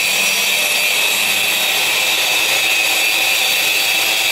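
Electric disc cutter running steadily with a high-pitched whine as it cuts grooves (chases) into a wall for electrical conduit.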